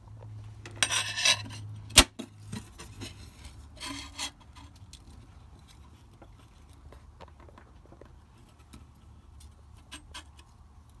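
Close handling sounds: rustling and a single sharp knock about two seconds in, then faint scratching and small taps as a pencil marks screw holes through a stainless steel wall plate.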